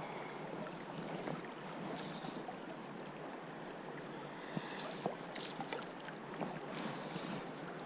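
Steady rush of a river's current with some wind on the microphone. A few faint, short clicks and high patches of sound sit on top of it.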